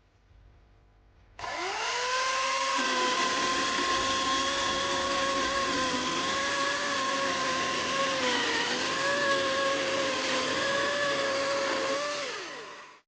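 Greenworks 80V brushless cordless chainsaw (GCS80421) spinning up about a second and a half in and running at a steady high whine, with a brief dip in pitch near the middle, then winding down near the end.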